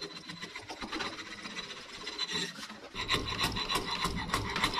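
A timber-framing slick paring the surface of an air-dried oak beam by hand: a quick run of short scraping strokes of the steel blade shaving the wood. The strokes grow louder from about three seconds in.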